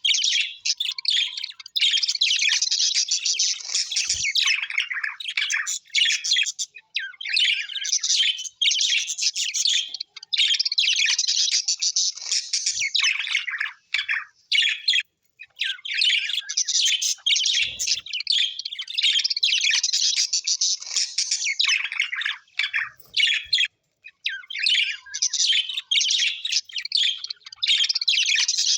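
Small parrots chattering and warbling continuously, in dense, rapid high-pitched chatter with a few brief pauses.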